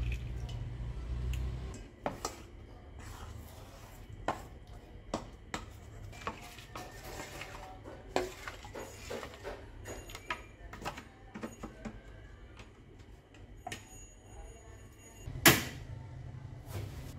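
A utensil stirring batter in a stainless steel bowl: scattered light clicks and scrapes against the metal. Near the end a single loud knock, followed by a low steady hum.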